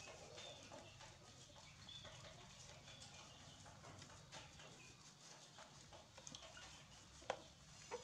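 Near silence: faint scattered taps and a few short, high chirps, with one sharp click about seven seconds in.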